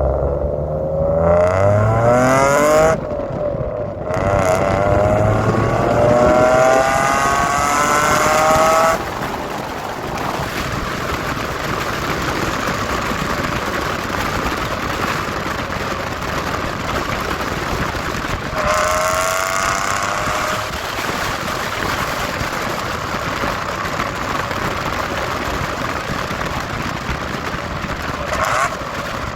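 Mitsubishi FTO GPvR's 6A12 MIVEC V6 accelerating hard on a loud exhaust. The revs climb, drop at a gear change about three seconds in, and climb again until about nine seconds. After that comes a steady even noise of the car driving on, with one more short rise in revs a little before halfway.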